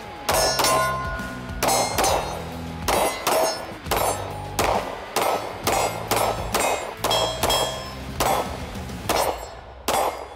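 A string of 9mm shots from a Springfield Armory Prodigy pistol, mostly in quick pairs, about eighteen in all, with steel targets ringing as they are hit. Background music plays underneath.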